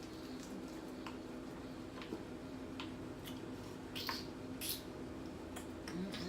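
Mouth-close chewing of hard-fried chicken wings: scattered crunches and wet mouth clicks every second or so, over a steady low hum.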